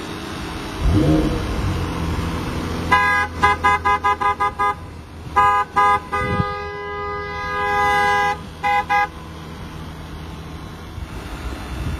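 A two-tone car horn sounding a rapid run of short toots, then two more, then one long blast and two quick final toots. A brief low rumble comes about a second in, before the horn.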